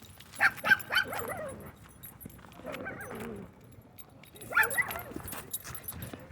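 A dog barking and yipping in short bursts: a quick cluster about half a second in, a longer falling call around three seconds in, and another cluster near five seconds.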